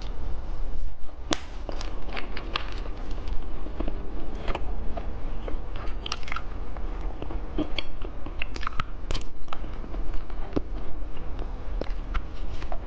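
Close-miked eating of candy: irregular crisp crunching bites and chewing, over a steady low hum.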